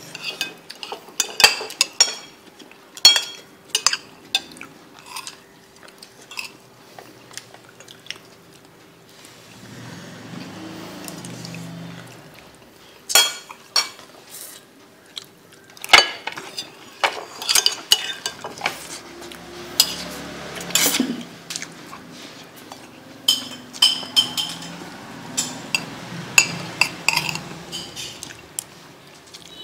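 Metal spoon clinking and scraping against a ceramic soup bowl, in irregular sharp clinks with quieter gaps between them.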